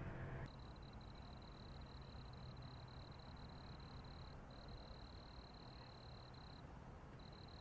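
Night insects trilling: one steady, thin, high-pitched trill that breaks off briefly twice, over a faint low rumble. For the first half-second a low vehicle engine hum is heard, then it cuts off.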